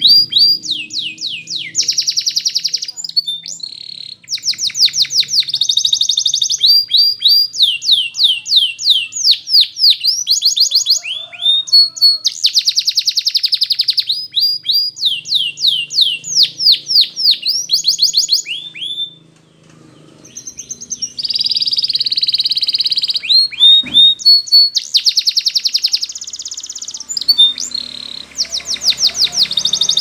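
A canary singing a long song of rapid trills: runs of fast repeated high notes and quick descending sweeps, broken by a short lull about two-thirds of the way through. A single sharp click sounds just after the lull.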